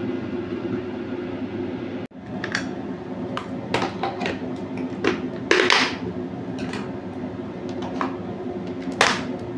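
Plastic food-container lids being handled and their latch flaps snapped shut: a scattered series of sharp plastic clicks and knocks starting about two seconds in, over a steady low hum.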